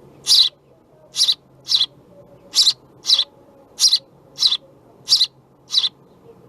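House sparrow nestlings calling from the nest: short, harsh chirps repeated about every two-thirds of a second, nine in all.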